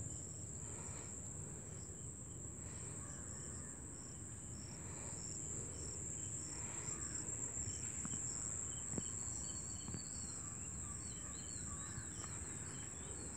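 Insects trilling in one steady high-pitched note, over a continuous low rumbling background noise. A few short bird chirps come through in the second half.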